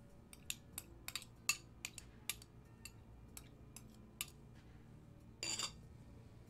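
A metal utensil scraping chopped red onion off a plate into a glass bowl: a dozen or so faint, irregular clicks and taps over the first four seconds, then a brief scrape about five and a half seconds in.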